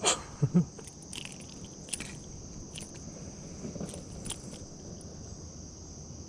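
Steady high-pitched chorus of insects, with a few sharp clicks and knocks, the loudest in the first half second and lighter ones scattered after.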